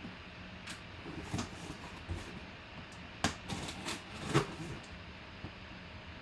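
Sealed cardboard product boxes being handled and opened: a few light knocks and rustles of packaging, spaced irregularly.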